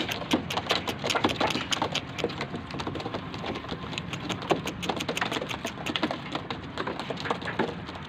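A flock of homing pigeons pecking at dried corn kernels: a dense, irregular clatter of quick beak taps.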